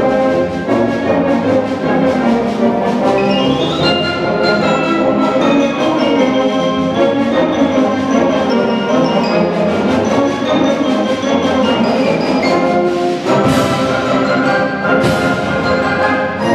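Xylophone solo on a Musser concert xylophone, struck with hard mallets in fast runs of notes, including a quick rising run about four seconds in, over the accompaniment of a school concert band of clarinets and brass.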